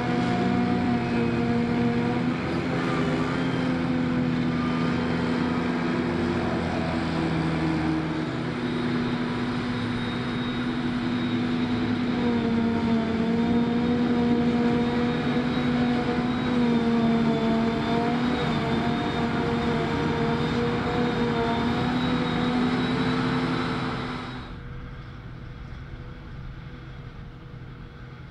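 Claas Jaguar 950 self-propelled forage harvester working under load, chopping grass with a tractor alongside: a steady, loud engine drone with a high whine. About 24 seconds in it cuts abruptly to a much fainter, distant tractor engine.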